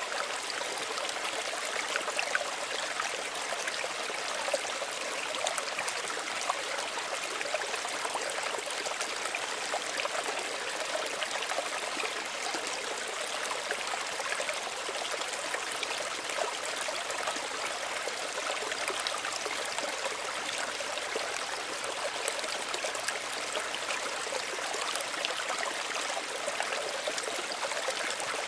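Small stream running steadily over stones, a continuous burble with many small trickles and splashes.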